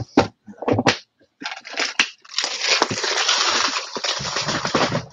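Small plastic LEGO pieces clicking in a plastic parts organiser box as it is handled. After a few sharp separate clicks, a long continuous rattle of many pieces starts about two seconds in.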